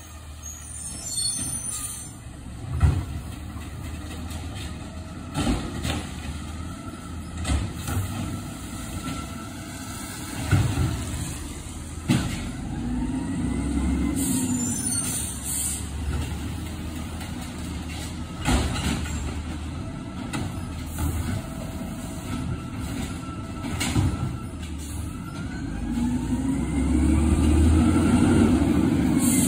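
Garbage truck working along the street: its diesel engine runs steadily and revs up and back down twice, loudest near the end, with scattered knocks and bangs of bins and the lifting gear. An air-brake hiss comes about halfway through.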